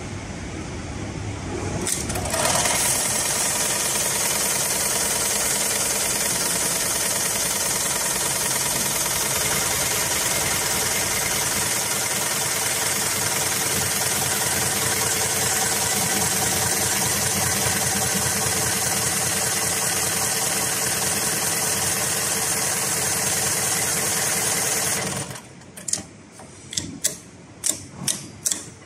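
Heavy-duty automatic bar-tacking sewing machine (HighTex 7273PLK/R) stitching through a thick safety rope. It starts about two seconds in with a click and runs fast and steady for over twenty seconds. It stops near the end, followed by a quick run of sharp clicks from the machine.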